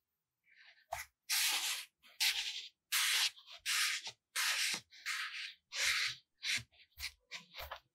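Small blocks of kinetic sand rubbed and pressed into place as roof tiles: a run of short scratchy rubbing sounds about every two-thirds of a second, shorter and quicker near the end.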